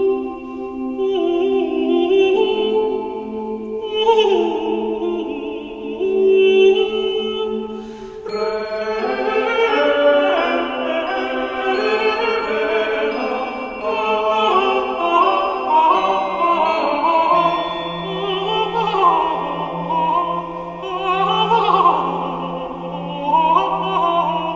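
Two-voice medieval organum sung unaccompanied: a tenor holds long sustained notes on the chant syllables while an upper voice sings long, flowing melismas above it. The held tenor note shifts pitch only a few times, with a new phrase starting about a third of the way in.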